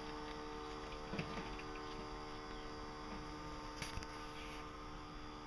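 Walk-behind lawn mower's small engine running faintly at a steady speed, with a light tap about four seconds in.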